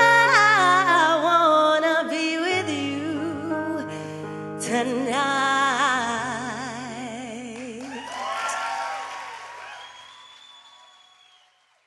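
A woman singing the closing lines of a ballad with wide vibrato over sustained accompaniment chords, the music fading away to nothing near the end.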